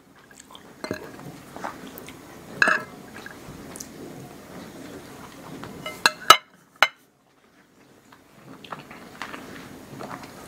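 Quiet eating at a table: chewing, with a few sharp clinks of metal cutlery against plates, the loudest a quick cluster of clinks about six seconds in, then a moment of silence.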